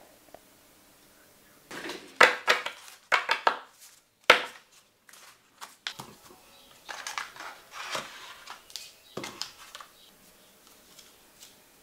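Clusters of short scrapes and clicks with quiet gaps between them: hand tools worked on a rubber printing block.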